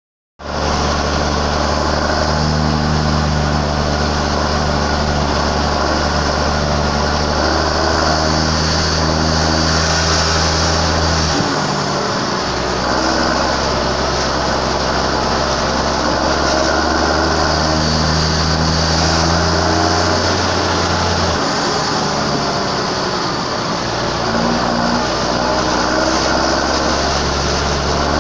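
John Deere 6150J tractor's diesel engine running steadily and loud, with a deep hum under a rough hiss. Its low tone drops and shifts briefly a couple of times.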